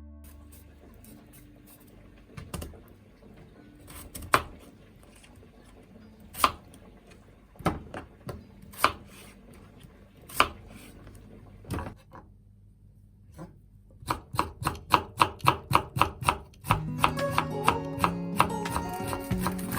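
Kitchen knife cutting on a cutting board: single cuts at scattered intervals, then a quick run of chopping at about five strokes a second near the end.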